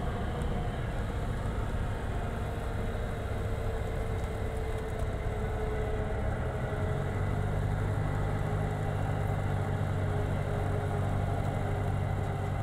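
Piper PA-28's piston engine and propeller running at low power, heard from inside the cabin during the landing roll and taxi. It is a steady drone whose low hum gets louder about halfway through.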